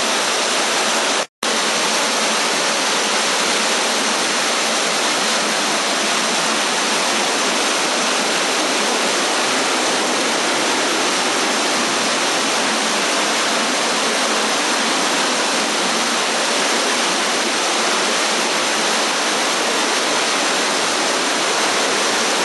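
Steady rushing of a creek flowing through a marble river cave, loud and even throughout. The sound drops out completely for an instant about a second in.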